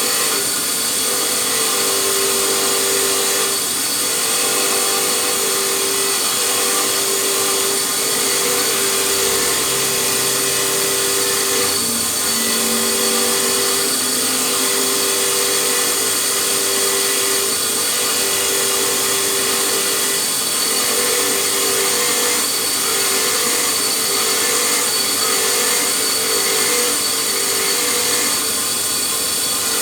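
Handheld electric power tool running continuously on metal, a steady motor whine under a strong, even hiss.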